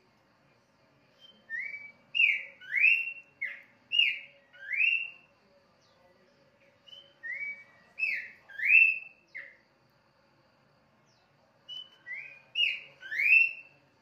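Caged pelanduk semak (a babbler) singing in full voice: three bursts of clear, slurred whistled notes, six to eight notes each, with short pauses between them. A faint steady hum lies underneath.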